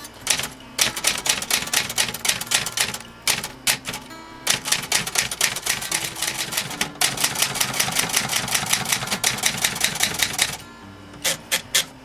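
Olivetti Underwood 21 manual typewriter being typed on: runs of sharp typebar strikes, several a second, broken by short pauses, with the fastest steady run in the second half.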